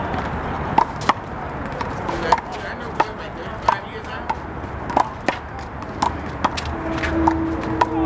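Sharp slaps of a handball rally: bare hands striking the big blue rubber ball and the ball smacking off the concrete wall and court, a dozen or so hits at an uneven pace.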